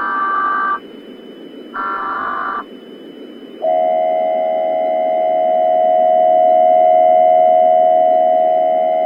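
Emergency Alert System tones: two short bursts of data-header tones about a second apart, then from about three and a half seconds in a steady alert attention tone that holds on. A constant low hiss of static runs underneath.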